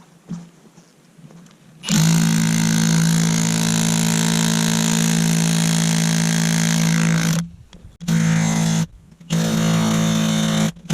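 Battery-powered jackhammer hammering into hard cap rock: it starts about two seconds in, runs for about five seconds, then comes back in two shorter bursts with brief stops between.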